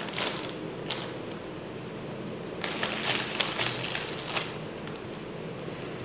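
Thin clear plastic cover crinkling and crackling as hands press and smooth it down over tumblers, in irregular crackles that come thicker around the middle.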